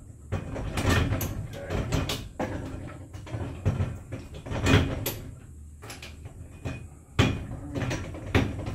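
A string trimmer's shaft being slid into and out of a GreenTouch trailer trimmer rack's holder: a run of irregular clunks and scrapes as the shaft knocks against the rack, the sharpest about five seconds in. He is checking that the freshly adjusted holder lets the trimmer slide easily.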